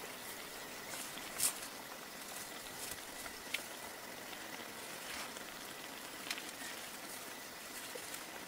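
Steady hiss of tomato and pepper sauce simmering in a cast iron skillet on a Coleman camp stove, with a few faint clicks scattered through it.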